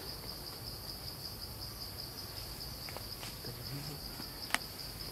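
Steady high-pitched drone of insects, with one sharp click near the end.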